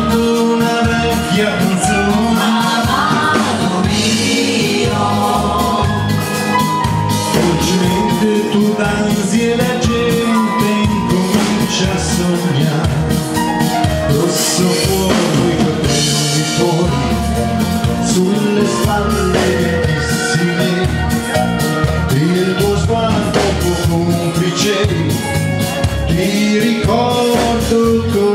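A live band performing a song: a singing voice over electric bass guitar and keyboards, with a steady beat.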